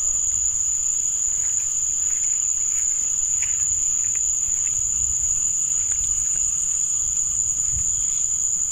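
Field insects, crickets by their sound, trilling in one continuous high-pitched note that never breaks, over a low uneven rumble.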